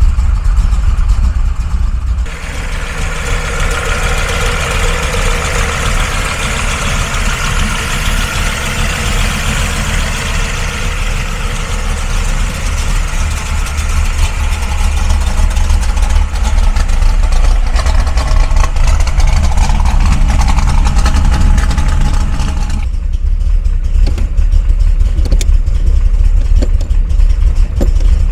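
Merlin 632 cubic-inch big-block V8 idling steadily after start-up, a deep low rumble. For most of the middle it is heard from outside the car, with a much brighter, raspier exhaust and mechanical hiss on top; near the beginning and the end it is heard from inside the cabin, where only the low rumble comes through.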